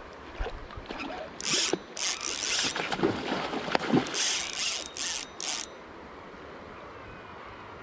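Okuma Helios HSX-40 spinning reel's drag ratcheting in several short runs as a hooked spring chinook salmon pulls line, with the fish splashing at the surface about four seconds in.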